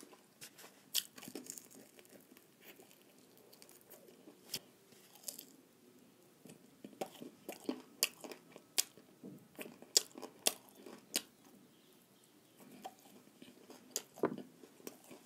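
Close mouth sounds of a person biting and chewing crunchy fried chicken lollipop: sharp crunches and wet chewing in irregular clusters, with a quieter stretch a few seconds in and another near the end.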